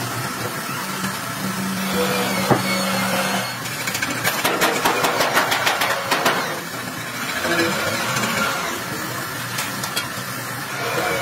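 Compressed-air paint spray gun hissing while spraying, over a steady running motor, with a run of clicks partway through.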